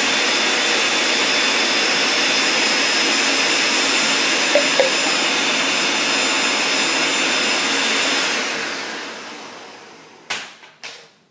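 Countertop blender running steadily, blending fruit, vegetables and water into juice, with a faint high whine over the motor noise. About eight seconds in it is switched off and winds down, followed by a few sharp knocks.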